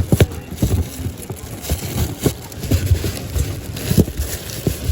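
Irregular knocks and light clatter of boxed die-cast cars being handled and shifted in a cardboard case.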